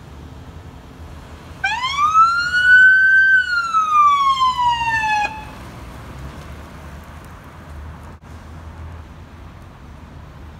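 Ambulance siren on a Reedy Creek medic unit van giving one short wail as it pulls out on an emergency response. The wail rises, slides back down and cuts off abruptly, over the low rumble of vehicle engines.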